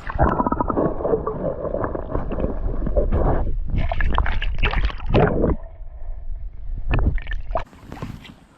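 Water sloshing and gurgling right at the microphone: a loud, muffled churning with a deep rumble and crackling splashes that starts suddenly and cuts off near the end.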